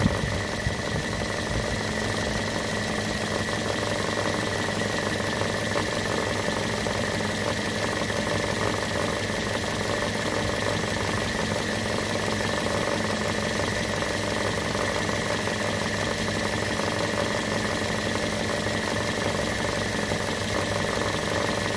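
Car engine idling with its belt-driven air-conditioning compressor running, a steady high whine over the even engine noise. The owner takes the compressor noise for a sign that it is low on compressor oil.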